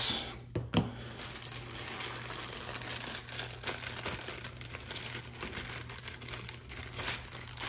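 Clear plastic bag crinkling and rustling as it is handled and opened to free a miniature, with a sharp tap under a second in.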